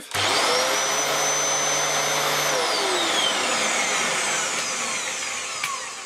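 A Dyson DC07 upright vacuum cleaner's motor is switched on. It runs up at once to a steady high whine for about two and a half seconds, is then switched off, and winds down with a falling whine. The motor runs normally: the fault was only the blown mains cable.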